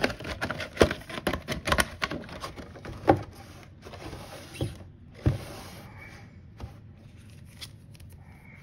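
Foil wrapper of a sealed trading-card pack crinkling and crackling as it is handled, with a run of sharp crackles and snaps over the first five seconds, then only faint rustling.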